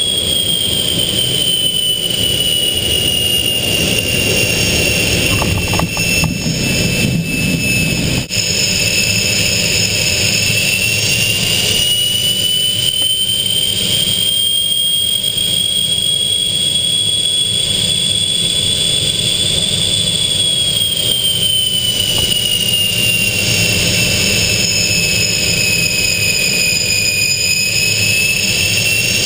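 Aero L-29 Delfin's single turbojet heard from inside the cockpit while the jet rolls and taxis on the ground: a steady high whine over a constant rush. The whine drifts slowly down and back up in pitch a few times as the power changes.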